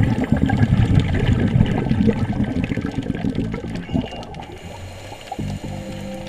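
Scuba exhaust bubbles from a diver's regulator, heard underwater: a loud, dense bubbling that weakens about four seconds in, with music coming back near the end.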